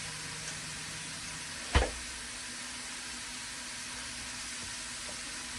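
Onions and peppers sizzling steadily as they sauté in a pan. A single sharp knock sounds just under two seconds in.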